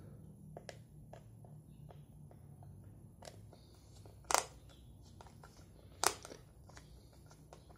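Screwdriver working at the battery-cover screw on a plastic multimeter case: quiet handling and scraping, broken by a few sharp plastic clicks, the loudest about four and six seconds in.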